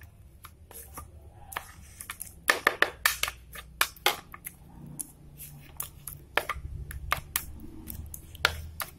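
Metal spoon stirring a thin wet flour batter in a plastic bowl, knocking and scraping against the bowl in quick, irregular clicks.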